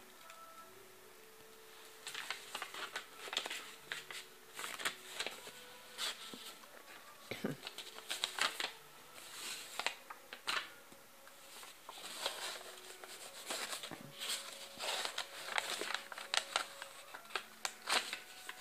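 Irregular clusters of dry rustling and crackling clicks, coming in bursts with short pauses between them.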